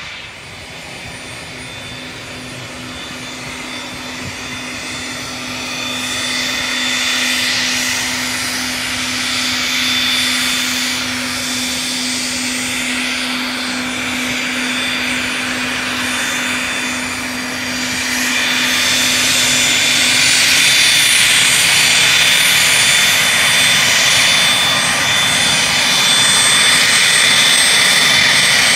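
Cessna Citation Ultra business jet taxiing closer, its twin Pratt & Whitney Canada JT15D turbofans whining at taxi power and growing steadily louder as it approaches. A steady low hum underneath fades out about two-thirds of the way through.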